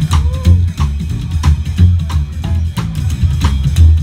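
Honky-tonk country band playing live without vocals: a drum kit keeps a steady beat over a walking upright bass, guitars and a dobro, with a slide note bending in pitch near the start.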